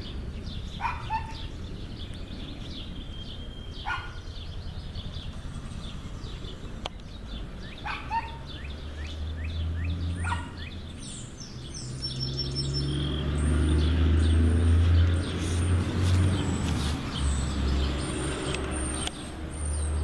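Wild birds chirping: short falling chirps here and there, then a run of high, quickly repeated notes from about halfway. A low rumble grows louder through the second half.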